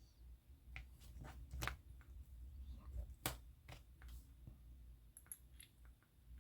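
Scattered light clicks and taps from small parts being handled on a workbench, about ten in all, the loudest a little over a second and a half in and about three seconds in, over a faint low hum.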